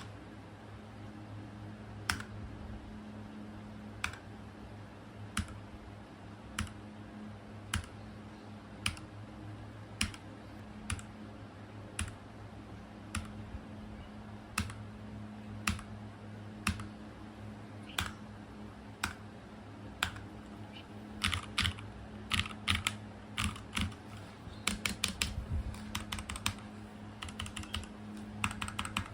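Keys on a ZIFRIEND T62 keyboard pressed one at a time, about one press a second, then typed in quick runs from about two-thirds of the way through, over a steady low hum.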